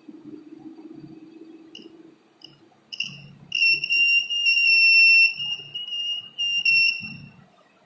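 Small electronic buzzer in a hobby circuit sounding a high-pitched beep as the circuit is closed. It gives a few short chirps, then holds a steady tone for about two and a half seconds, then one more short beep.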